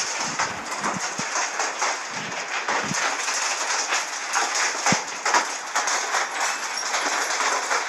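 Hail pelting down: a dense, continuous clatter of many small hits over a steady hiss, with a few louder knocks among them.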